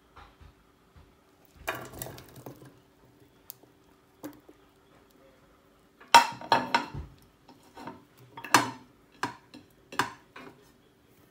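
Kitchen dishes and cutlery clinking and knocking: a short clatter about two seconds in, then a string of sharp separate clinks through the second half.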